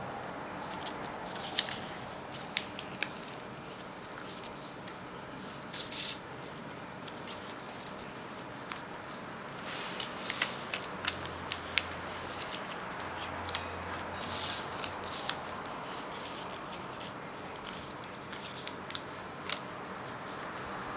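A square sheet of origami paper being folded and creased by hand: scattered crisp crackles and rustles of the paper over a steady background hiss.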